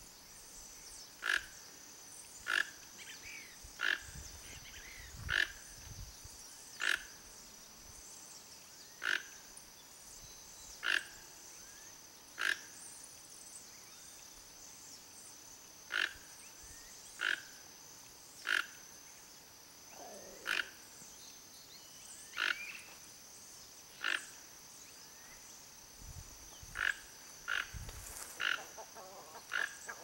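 Toco toucan calling: short, hoarse croaking calls repeated about once every one to two seconds, with a pause of a few seconds midway. A steady high-pitched buzz runs underneath throughout.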